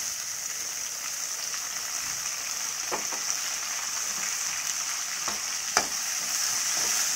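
Chopped tomatoes and sliced onions sizzling steadily in hot oil in a metal kadai. A metal spoon clicks against the pan a few times as they are stirred, loudest about six seconds in.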